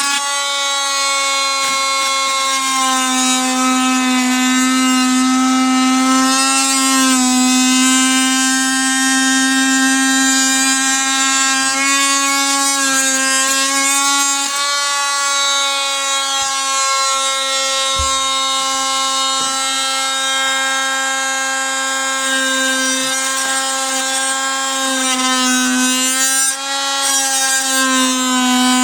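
Metabo MT 18 LTX cordless oscillating multi-tool with a wood-cutting blade, cutting into a wooden panel: a loud, steady high-pitched buzz whose pitch sags slightly now and then as the blade bites into the wood.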